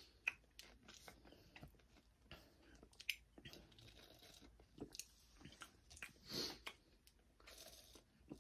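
Faint mouth sounds of drinking a thick milkshake straight from the cup: scattered soft smacks and swallows, with one slightly louder sound about six seconds in.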